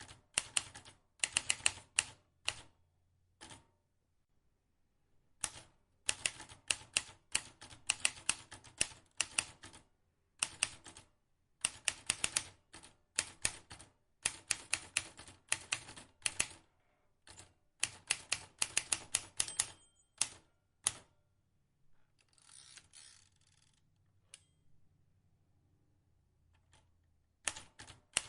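Vintage manual typewriter, its keys struck in quick runs of clacks separated by short pauses. About 22 s in there is a softer scraping sound lasting about two seconds, then one lone click. Typing picks up again near the end.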